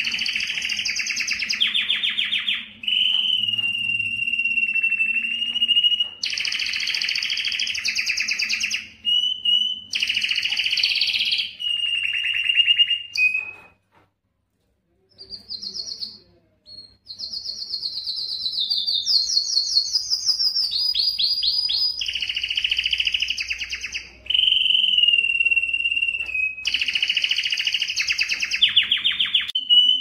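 Domestic canary singing a long, loud song of rapid trills and steady whistled notes, with one short pause about halfway through followed by trills that step upward in pitch.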